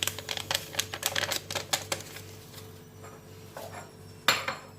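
A quick run of light clicks and taps of kitchenware as semolina is tipped into a blender jar, thinning out, then one louder knock near the end. The blender is not yet running.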